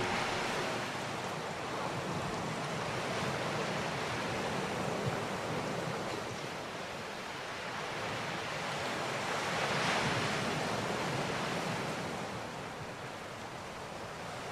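Steady rushing of sea surf and wind, swelling a little about ten seconds in.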